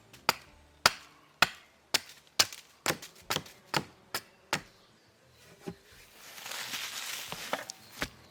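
Axe chopping wood: about ten sharp, evenly paced strikes, roughly two a second. A few seconds of noisy scraping follows near the end, with a couple of lighter knocks.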